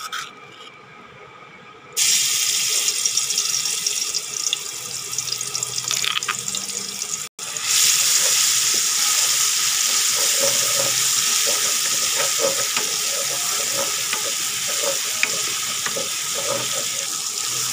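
Pounded chilli and garlic frying in hot oil in a wok: a loud, steady sizzle that starts suddenly about two seconds in as the paste hits the oil, with the spatula scraping the pan as it is stirred.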